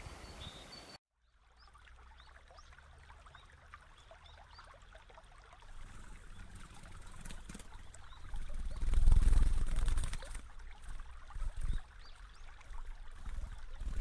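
Water trickling, with faint high chirps over it; a loud low rumble swells up about nine seconds in and fades by ten.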